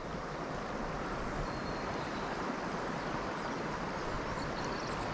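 Steady rush of flowing river water, an even noise with a low rumble under it and no breaks.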